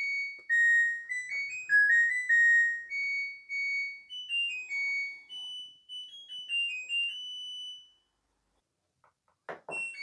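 LG front-load washing machine playing its electronic end-of-cycle melody, a tune of clear beeping notes stepping up and down that stops about eight seconds in: the sign that the wash cycle has finished. A few faint clicks follow near the end.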